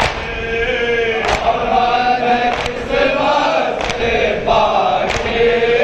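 Men chanting a noha, a Shia mourning lament, in unison, with a chest-beating slap (matam) about every 1.3 seconds keeping the beat, five strikes in all.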